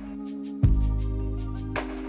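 Background music: steady held notes, with a deep bass note striking about half a second in and a swelling hiss building near the end.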